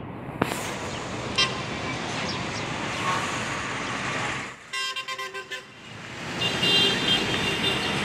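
Road traffic noise with car horns tooting several times.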